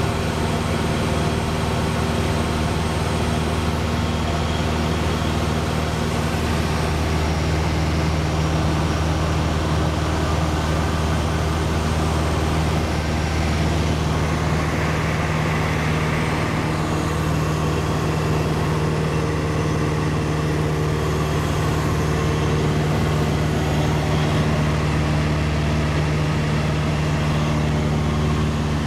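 Cessna 172's piston engine and propeller running at a steady cruise power, a constant even drone heard from inside the cabin in flight.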